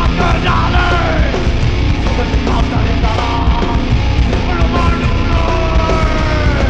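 Live hardcore band playing loud, distorted guitars, bass and pounding drums, with yelled vocals over the top.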